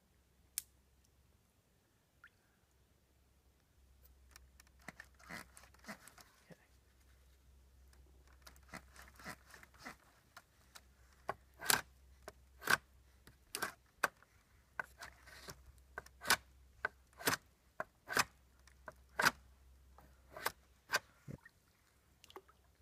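A knife hacking at a thin wooden stick, with sharp chopping strokes about once a second through the second half. Softer scraping and crunching of wood and twigs comes before them.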